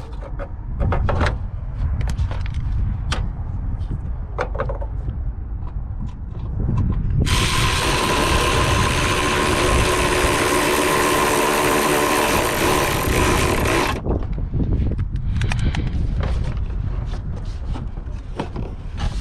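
Scattered clicks and knocks of hand tools working on a car's headlight assembly, with ratchet-like clicking. About seven seconds in, a loud steady whirring hiss starts suddenly, runs for about seven seconds, then cuts off.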